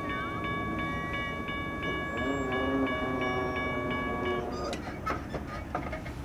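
A bell ringing rapidly, about three strikes a second, while the distant horn of an approaching GE Dash 9-40CW freight locomotive sounds. Bell and horn stop about four seconds in, followed by a few sharp knocks.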